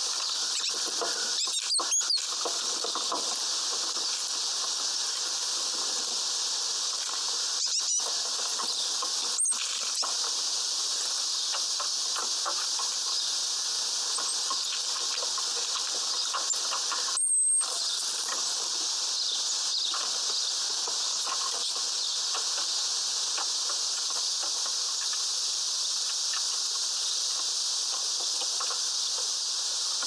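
Great tits feeding at a window bird feeder: faint pecking and scratching among peanuts and sunflower husks, with a few brief louder scuffles, the longest about 17 seconds in. A steady high hiss runs underneath.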